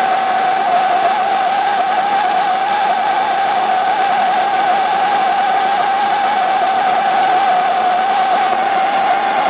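Handheld gas soldering torch burning steadily, a loud hiss carrying a wavering whistle-like tone, as its flame heats a copper pipe fitting for sweat soldering.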